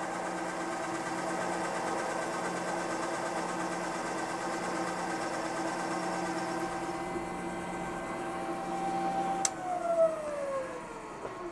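Milling machine spindle running steadily with a countersink drill cutting into an aluminium plate. About nine and a half seconds in a click is heard and the motor's whine falls steadily as the spindle spins down.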